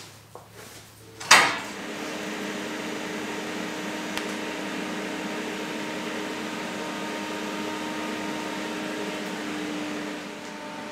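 A sharp knock, then TIG welding on 2.5 mm 316 stainless steel sheet: a steady arc hiss with a constant hum, dropping away about ten seconds in to a quieter steady hum.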